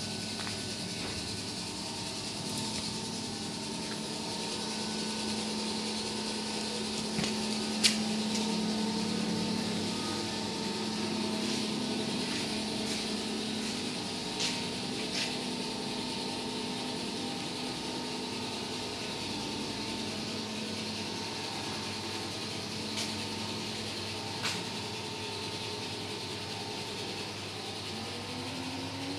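Electric drive of a Tehag 6000 kg welding positioner running steadily, tilting the table, with a steady hum and a few sharp clicks.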